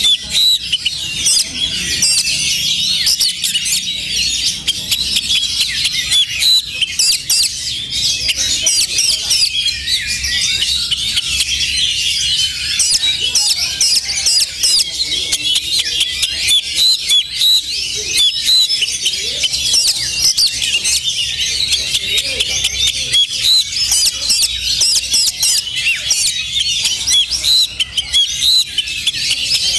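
Oriental magpie-robins singing, many birds at once in a dense, continuous chorus of high chirps and whistles.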